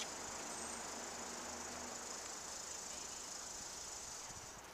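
Quiet open-air ambience between points: a steady high-pitched hiss over a faint low hum, with one small click at the very start.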